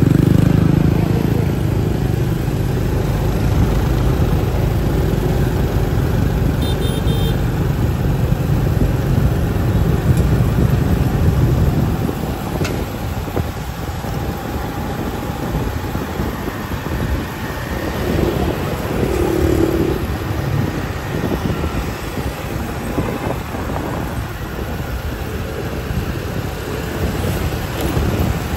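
Street traffic of motorbikes and cars passing, a steady engine rumble that is heavier for the first twelve seconds and then eases.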